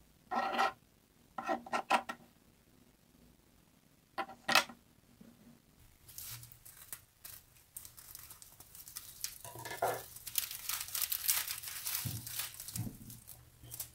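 A few short scrapes and knocks in the first five seconds as chopped green onion is pushed into a glass bowl and a knife is set down on a plastic cutting board. Then about eight seconds of plastic crinkling and rustling as an onion is taken from its plastic mesh bag.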